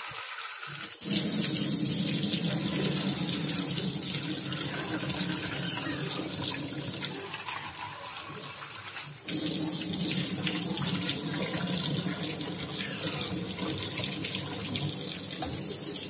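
Kitchen tap running into a plastic tub held under it over a stainless steel sink, a steady splashing rush of water. It is quieter for the first second and again for about two seconds just past the middle, then picks up again.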